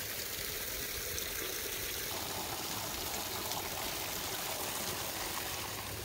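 Water trickling and splashing over rocks into a pond like a small waterfall: a steady rushing sound.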